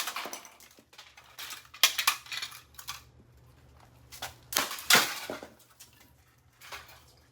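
A Gentex ST24-30WR fire alarm being struck and clattering across concrete as it and its broken pieces skitter about. There are several sharp hits with lighter clatters between them, and the loudest hit comes about five seconds in.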